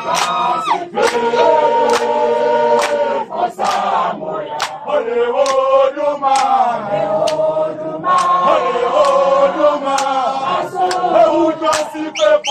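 A group of voices singing together in long held notes, with sharp taps scattered irregularly through the singing.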